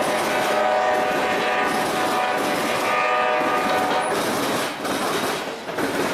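Freight train passing close by: a locomotive's multi-tone horn sounds for about four seconds and then stops, over the running noise and clickety-clack of hopper cars rolling past.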